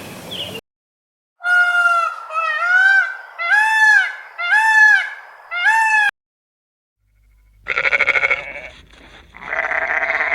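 Bleating livestock: a quick run of about six short bleats that rise and fall in pitch, then after a pause two longer, wavering bleats.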